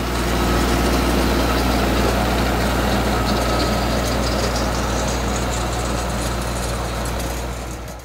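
Blue New Holland compact tractor's engine running steadily, driving a red rear-mounted rotary tiller that churns through the dry, cloddy soil. The sound fades in at the start and eases off near the end.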